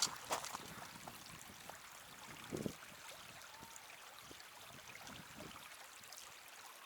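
Faint trickling of a shallow creek running over rock, with a few soft footsteps, the clearest about two and a half seconds in.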